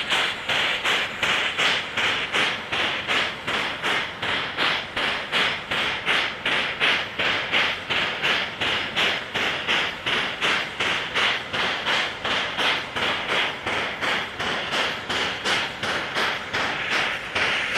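Steam locomotive's steam-driven air pump working, an even panting rhythm of about three exhaust beats a second.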